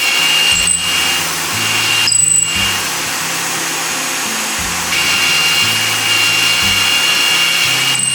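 A power tool running with a steady high whine, briefly cutting out twice in the first few seconds, over background music.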